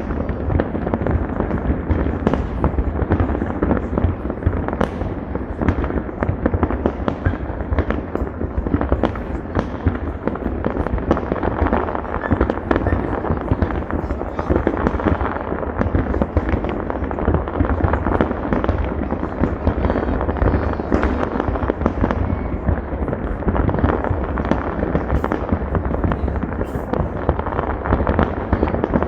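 Many fireworks going off at once: a dense, unbroken barrage of bangs and crackling with deep booms underneath, with no let-up.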